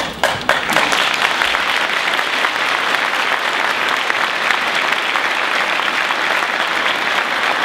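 Audience applauding in response to a speech line, a dense, steady clapping that starts abruptly and keeps up without letting up.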